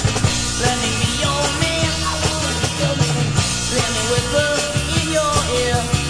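Garage rock band recording: full band playing, with drums keeping a steady beat under held melody notes.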